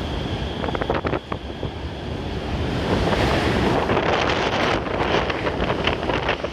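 Typhoon-force wind buffeting the microphone in heavy gusts: a loud, dense rushing noise that dips briefly about a second in, then swells again.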